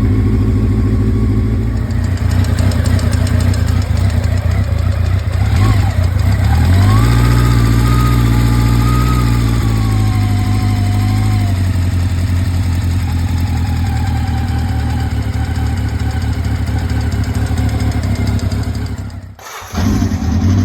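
Honda Nighthawk 700S motorcycle engine running at idle, revved up about seven seconds in, held, then let back down to idle; the sound briefly cuts out near the end. The engine has a ticking noise that the owner is trying to locate.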